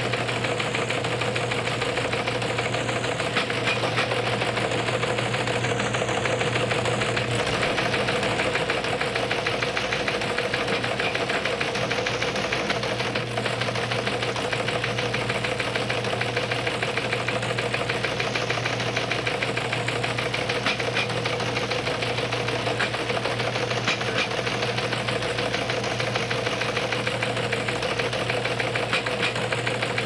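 Steady, unchanging machine-like clatter with a low hum underneath.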